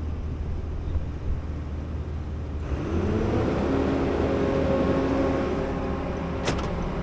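John Deere 9400 combine running with a steady low drone; about two and a half seconds in its threshing machinery is engaged and spins up, a rising whine that settles into a steady hum of several held tones. A short click near the end.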